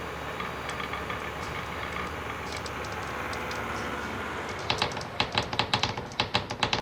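Marbles rolling along a wooden marble run with a steady rattle, then a quick run of sharp wooden clacks over the last two seconds as they knock down the track.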